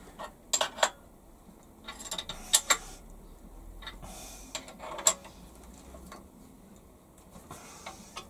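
Sharp metallic clinks and knocks, a handful spread out with the loudest about two and a half and five seconds in, from a spanner and clamp bolts being handled on a milling machine table while a steel workpiece is clamped down.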